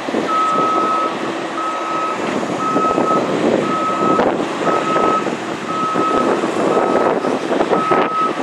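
Repeated electronic beeping at one steady pitch: eight beeps, each about half a second long, about a second apart, like a ground vehicle's reversing alarm. Underneath is the steady rumble of a Boeing 737-700's CFM56 engines at taxi idle, with wind on the microphone.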